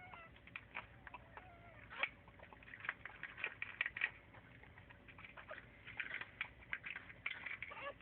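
Small animals squeaking a few times near the start, followed by a steady run of short scratchy clicks and rustles.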